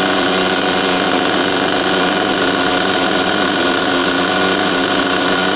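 Small nitro glow-fuel engine of a radio-controlled car running at a steady pitch.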